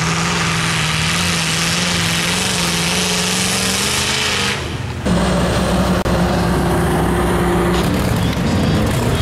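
Mud truck engine running hard at a steady, held pitch while it plows through a mud pit. About five seconds in, the sound cuts abruptly to another truck's engine, also running at a steady high speed.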